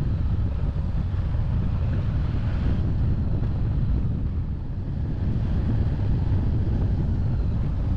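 Wind rumbling steadily on the microphone of a moving Harley-Davidson Street Rod 750, with the motorcycle's engine running beneath it.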